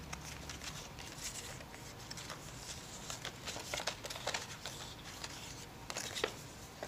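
Hands folding and creasing printed card stock along pre-scored fold lines: scattered soft crinkles and snaps of stiff paper, a few louder ones near the middle and near the end.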